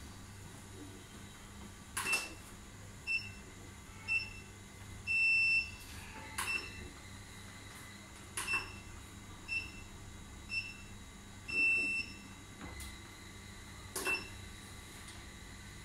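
Fitkit treadmill console beeping as its buttons are pressed: short electronic beeps about a second apart, each run ending in a longer beep, with a few sharp knocks in between.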